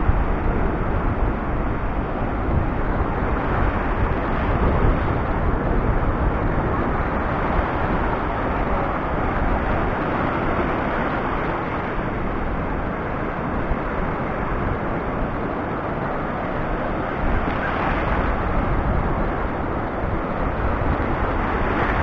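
Rough sea surf washing in over a shallow stony shore: a steady rush of breaking waves with a low rumble underneath, swelling louder a couple of times as bigger waves come in.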